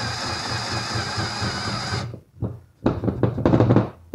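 Handheld rotary tool running at high speed with a steady whine, its bit routing out a shallow recess in wood for a keyhole hanger. It stops sharply about two seconds in. Near the end come a cluster of knocks and handling noises.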